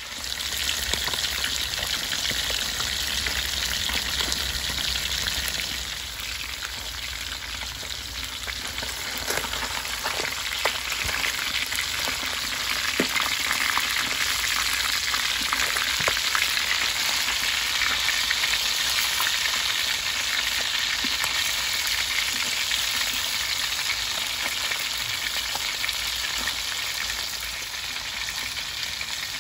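Food deep-frying in hot oil: a steady sizzle with fine crackling. It eases off a little about six seconds in and picks up again from about nine seconds.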